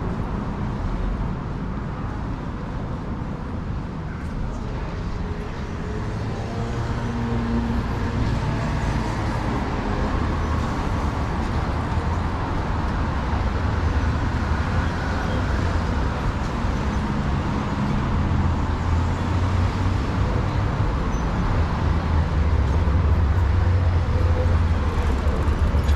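City road traffic: the low rumble of cars and other vehicles running along the street, growing louder through the second half.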